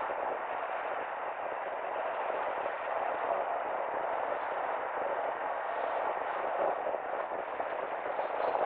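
Steady rush of tyre and wind noise from a car driving along a city street.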